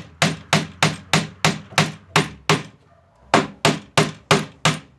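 Hammer tapping quickly and evenly, about three blows a second, with a short pause near the middle, working into a heat-softened glue joint of a wooden dresser to open it up.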